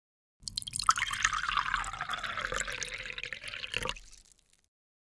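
A single-serve pod coffee maker dispensing coffee in a stream into a ceramic mug, with a falling tone, stopping suddenly about four seconds in.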